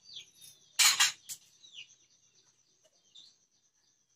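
Birds chirping in short falling calls, over a steady high-pitched tone. About a second in there is a short, loud clatter, the loudest sound here.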